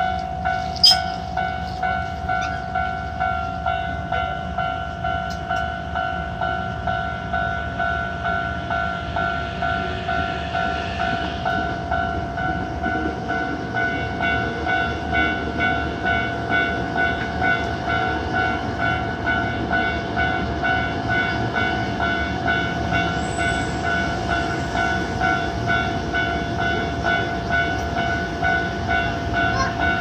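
Hankyu Railway level-crossing warning bell ringing in an even, repeating ding, about two to three strikes a second, warning that a train is coming. An electric commuter train rumbles past across the crossing in the second half.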